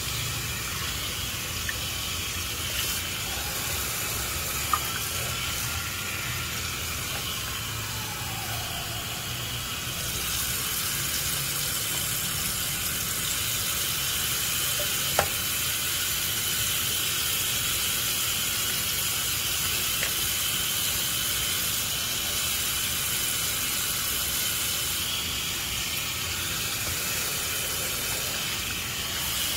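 Bathroom tap running steadily, the stream splashing onto a plastic waterproof phone pouch and into the sink basin. Two sharp clicks stand out, about five and fifteen seconds in.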